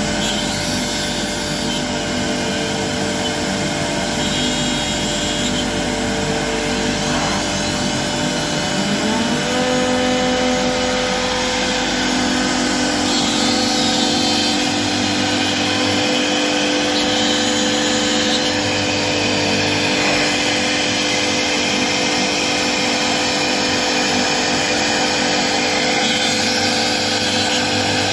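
CNC router spindle running and cutting slots into a Corian solid-surface countertop, a loud, steady machine whine. About eight to nine seconds in, a tone glides up in pitch and then holds steady.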